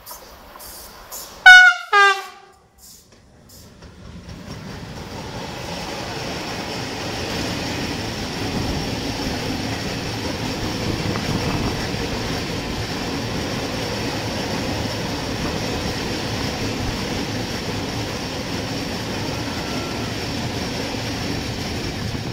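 An electric locomotive sounds two short horn blasts about a second and a half in, the second lower in pitch. Then a long freight train of cement silo wagons rolls past close by, its wheels rumbling and clattering on the rails, building up over a few seconds and then holding steady.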